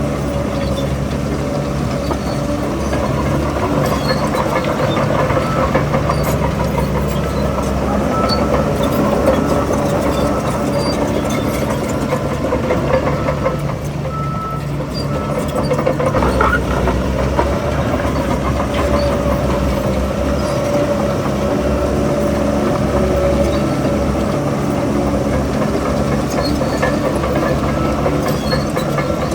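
Heavy earthmoving machine's diesel engine running steadily under work, its note changing and dipping briefly about halfway through.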